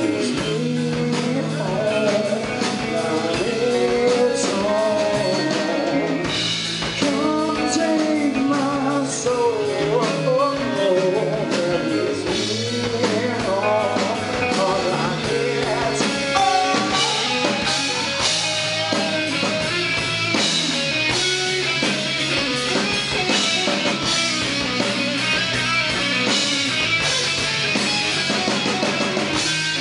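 Live rock band playing amplified through a PA: electric guitars, bass and drum kit, with a singer's vocals over the top.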